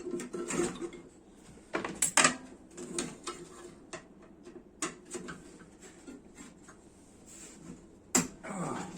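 Scattered clicks and metal knocks of hands and a tool working inside an opened microwave oven's sheet-metal housing to remove the fan motor, with the loudest clatter about two seconds in.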